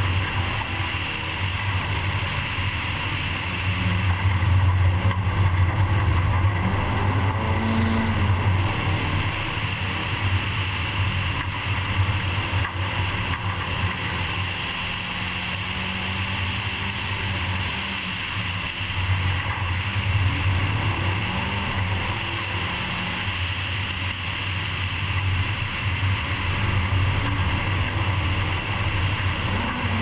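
Nissan 240SX rally car's engine running hard on a gravel stage, heard from inside the cabin, its note rising and falling with throttle over steady tyre and road noise.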